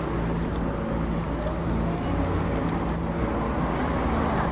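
Steady city traffic noise, a constant rumble of vehicles with a low hum running through it.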